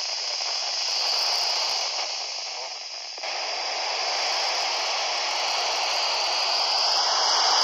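FM receiver hiss and static from a Kenwood dual-band handheld transceiver tuned to the International Space Station's voice downlink, with no clear voice coming through. The hiss steps up in level about three seconds in.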